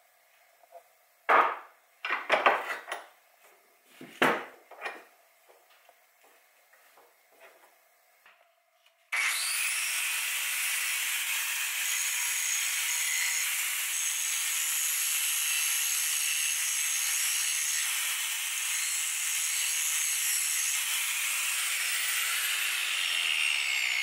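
A few knocks and clatters, then about nine seconds in an angle grinder's cutoff wheel starts cutting into a solid metal bar clamped in a bench vise: a loud, steady grinding hiss that does not let up.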